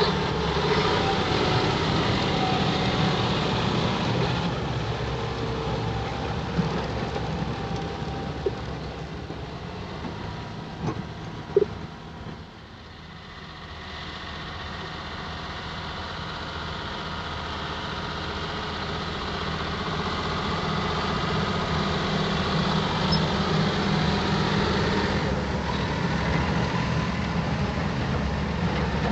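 John Deere 6175R tractor's six-cylinder diesel engine running steadily while ploughing. It fades to its quietest about twelve seconds in, then grows louder again, with a sharp knock just before the low point.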